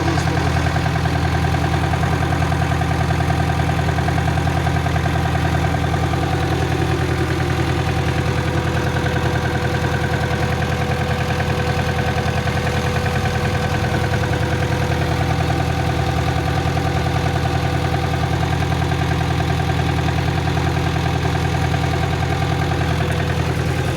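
Diesel engine of a DW-354S tractor running steadily at constant speed, an even low drone with no revving.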